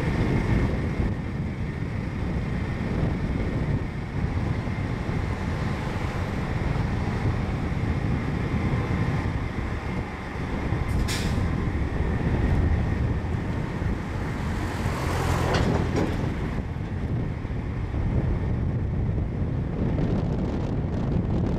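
Steady low rumble of a turntable slowly turning a KiHa 121 series diesel railcar. There are two short hisses, about eleven and fifteen seconds in.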